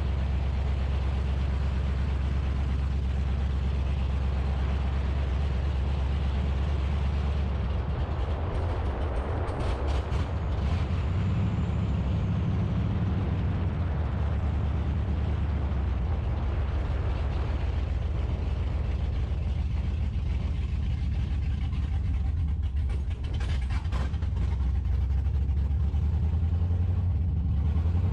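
Second-generation Camaro's engine running steadily on a road drive, with its low pitch shifting as it picks up speed about a third of the way in. The engine is not running smoothly; it is still on an untuned, self-learning Holley fuel-injection setup.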